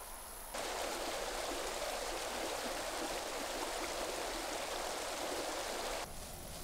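A steady rushing noise that starts suddenly about half a second in and stops just as suddenly about a second before the end.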